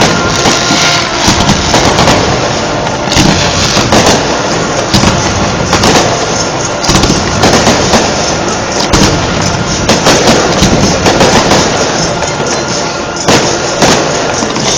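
Fireworks going off in a rapid barrage: loud bangs and crackling bursts one on top of another, with no pause between them.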